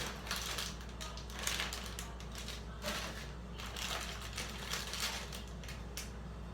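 Plastic snack wrappers crinkling and rustling on and off as packages are handled.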